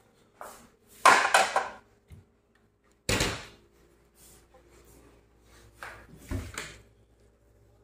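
Ceramic dishes being put away into wooden kitchen cabinets: a quick run of clattering knocks about a second in, a single heavy knock near three seconds, and two more knocks near the end as a cabinet door is handled.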